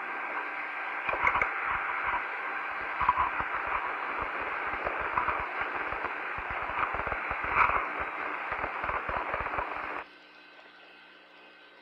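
Open-channel static from the Gemini 4 air-to-ground radio link: a thin, band-limited hiss with scattered crackles and clicks. It cuts off abruptly about ten seconds in, leaving only a faint hiss.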